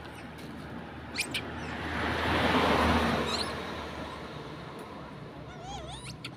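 A broad rushing noise swells and fades around the middle. Near the end come a few short, wavering high squeaks from young long-tailed macaques.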